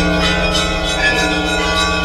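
Orthodox church bells ringing: several bells of different pitch struck over and over, their tones ringing on over one another, above a deep bell tone that sounds throughout.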